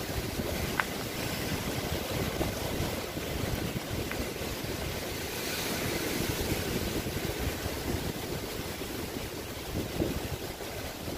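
Sea surf breaking on a rocky shore, a steady wash of waves, with wind buffeting the microphone.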